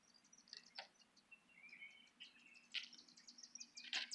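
Faint birds chirping: scattered short high chirps, with a warbling call about two seconds in.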